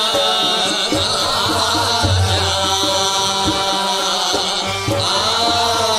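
Qawwali music: voices singing a gliding melody over held instrumental tones and a steady tabla beat.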